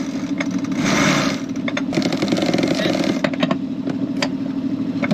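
Sailboat's inboard engine running steadily, with scattered sharp clicks from a cockpit winch being cranked with a winch handle.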